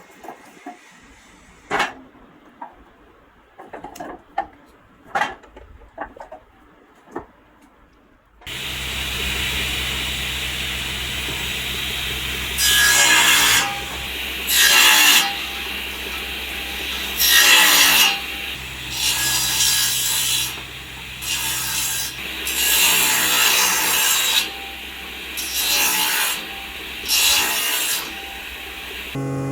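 A few sharp knocks, then a woodworking machine starts up about eight seconds in and runs with a steady hum. It makes repeated loud cutting passes into wood, each a second or so long.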